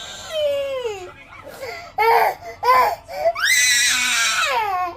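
A 15-month-old toddler crying in a tantrum. A falling wail comes first, then two short sobbing cries about two seconds in, then a long, loud, high wail that sinks in pitch near the end.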